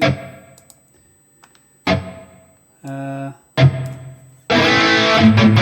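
Electric guitar played through a Valeton GP-200 modeler with hall reverb and chorus on. A few single chords are struck and left to ring out, then about four and a half seconds in comes a denser, sustained passage whose notes waver with the chorus.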